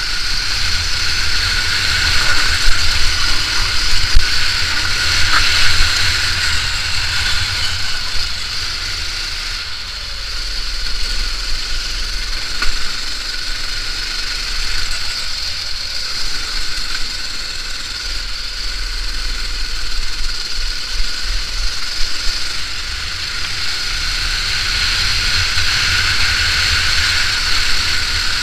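Go-kart engine running at racing speed, heard from the driver's seat, with the low rumble of wind and vibration on the microphone. It eases off twice, about ten and eighteen seconds in, as the kart lifts for corners.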